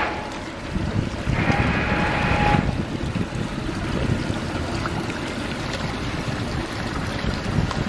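Wind buffeting the microphone over lapping water around the kayak. About a second and a half in comes a short hiss with a steady tone in it, lasting about a second.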